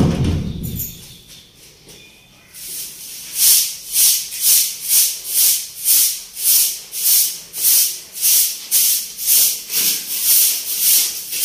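Hand broom with long straw bristles sweeping a hard floor in regular swishing strokes, about two a second, starting a couple of seconds in. Before it, a short low sound as a wooden door is opened.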